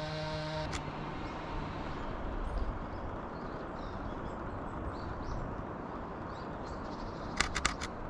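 Outdoor background noise with faint high bird calls, after a held musical tone cuts off under a second in. Near the end come four quick, sharp clicks.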